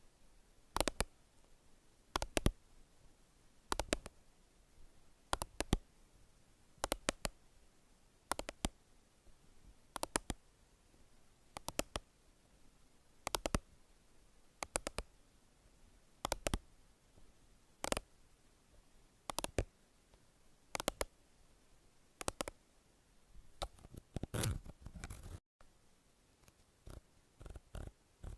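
Sharp clicks, mostly in close pairs about every second and a half, with a short stretch of rustling and scraping near the end followed by a quicker run of clicks.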